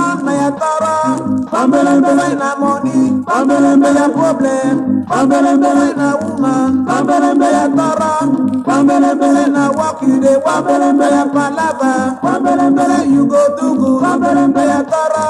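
Nigerian highlife band recording from a 1979 vinyl LP playing: voices singing in harmony over a steady bass line and percussion.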